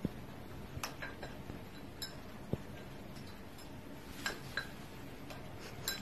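Several light, scattered clicks and taps, a second or two apart, over a quiet room background.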